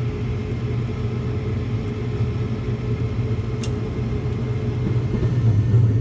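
Gas furnace running with its burners lit, a steady low rumble, the flame holding on a freshly cleaned flame sensor. A brief click about three and a half seconds in.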